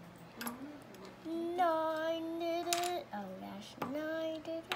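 A voice singing wordlessly: a long note held for about a second and a half, a short lower note, then the same long note again, with a few faint clicks.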